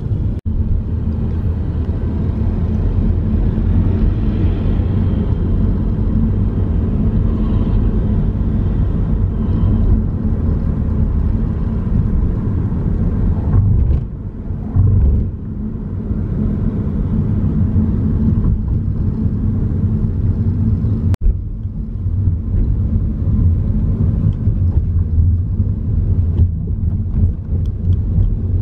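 Steady low rumble of a car driving, heard from inside the vehicle: engine and road noise.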